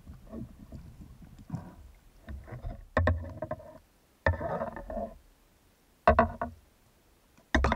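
Underwater knocks picked up through the camera mounted on a speargun as the gun and the speared mullet on its shaft are handled: faint scattered knocks at first, then four sharp knocks from about three seconds in, each ringing briefly.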